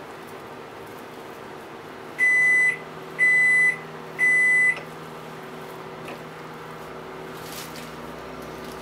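A kitchen appliance's electronic beeper sounding three times: three high-pitched beeps, each about half a second long, one a second, over a low steady hum.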